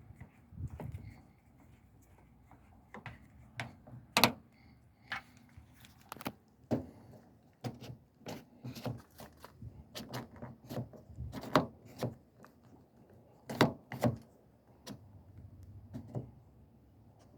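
Irregular sharp clicks and taps of plastic and metal door-handle parts being handled and fitted with an Allen key, about two dozen of them spread through, the loudest about four seconds in and two close together near the end.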